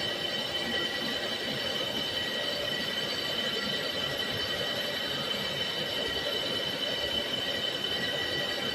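Milling machine grinding the edge of a blade: a steady high-pitched whine over a continuous grinding noise.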